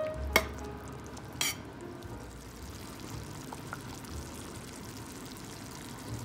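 Pork humba simmering in its soy-and-Sprite sauce in a metal pan, a steady bubbling sizzle, while a metal spoon stirs it: a sharp clink of spoon on pan about half a second in and a short scrape about a second later.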